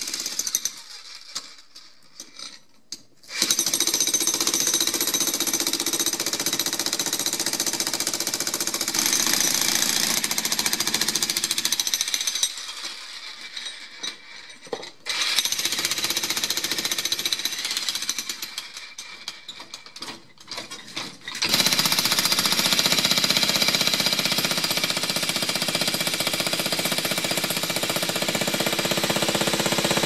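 Electric jackhammer breaking up a concrete slab, hammering in long runs broken by three short pauses.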